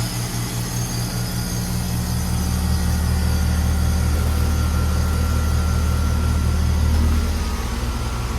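2018 Carrier Comfort Series heat pump outdoor unit running in its defrost cycle: a steady low hum with an even hiss above it.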